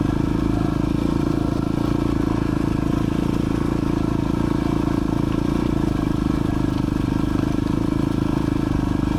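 Dual sport motorcycle engine running at a steady, unchanging speed.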